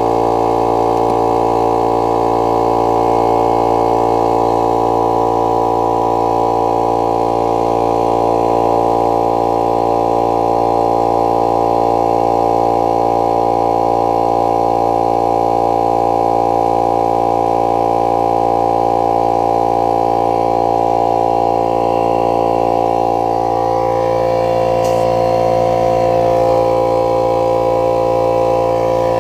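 Portable electric air compressor running steadily, its motor and pump giving a constant hum with several fixed tones. Its tone shifts slightly a little over three-quarters of the way through.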